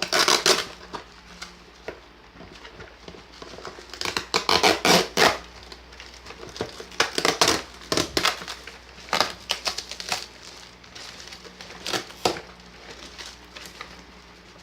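Bubble wrap and sticky tape being pulled apart and crinkled by hand, in irregular bursts of rustling and tearing with short pauses between.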